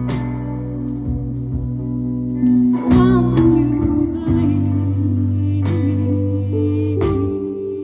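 Live band music led by an electric guitar played through stage amplifiers, over sustained low bass notes.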